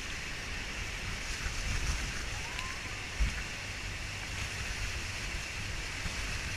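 Steady rush of Niagara Falls' falling water, with irregular low wind rumble on the microphone and a brief low thump about three seconds in.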